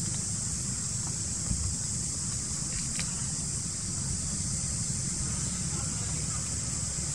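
Steady outdoor background noise: a constant low rumble, typical of wind on the microphone, under a steady high-pitched hiss, with one faint tick about three seconds in.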